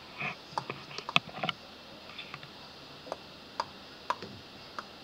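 Scattered short clicks and ticks, about eight, irregularly spaced, over a quiet background, the sharpest about a second in.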